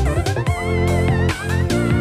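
Background music with a steady beat over a sustained bass line.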